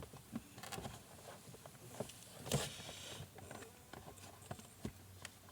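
Light plastic knocks and clicks as the spin-dryer basket is handled and seated in a portable folding washing machine, with one louder knock about halfway through.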